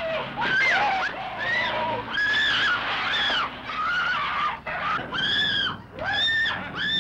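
A woman screaming over and over in short, shrill screams, one after another, with a brief lull midway.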